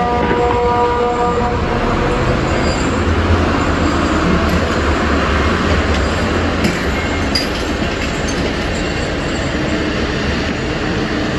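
A pause in the siren's water-alarm signal, its tone silent, filled by a loud rushing noise with a deep rumble that swells through the middle and eases off toward the end.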